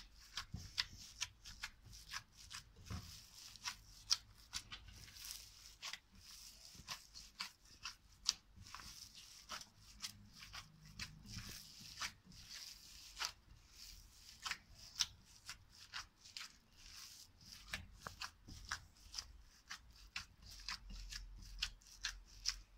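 Gloved hands kneading seasoned mixed minced meat in a glass bowl: a steady run of short, irregular sticky clicks and squishes, several a second.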